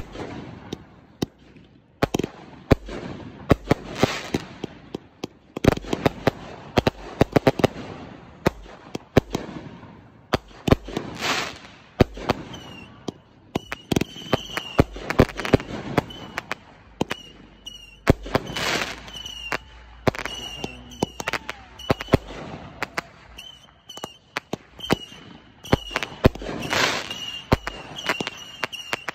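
Fireworks going off in quick succession: sharp bangs and pops throughout, with swells of hissing crackle every few seconds.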